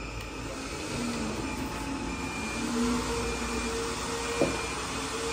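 Steady whirring and hiss of running machinery, with faint humming tones coming in a couple of seconds in, and a single light click near the end.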